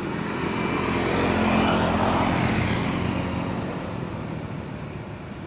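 Small petrol engine of a bamboo raft's long-shaft propeller rig running steadily. A louder rushing noise swells to a peak about two seconds in and then fades away.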